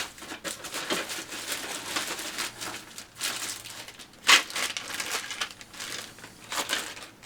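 Plastic bags of model kit parts crinkling and rustling as they are handled, in an irregular run of crackles with a louder crinkle about four seconds in.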